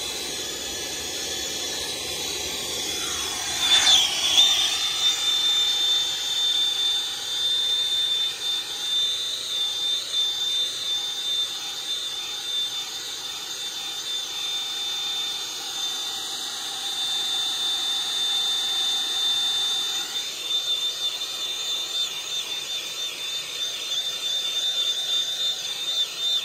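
Handheld gas torch burning with a steady hissing roar and a high whistling tone, louder from about four seconds in. Its flame is heating muffler repair paste packed into a rust hole, to cure the patch hard.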